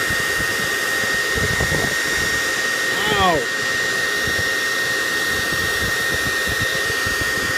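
Hair dryer running steadily on high: an even rush of blown air with a constant high whine.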